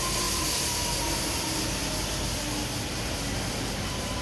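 Sydney Metro Metropolis electric train moving slowly along the platform: steady rolling and running noise with a thin steady whine from its traction equipment.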